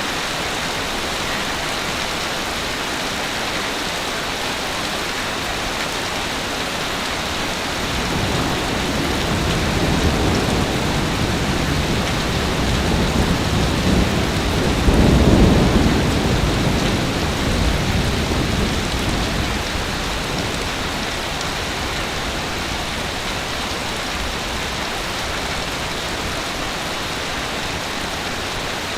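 Ocean waves on a beach: a steady hiss of surf, with one bigger wave swelling up from about a third of the way in, breaking loudest near the middle and washing back down to the steady hiss.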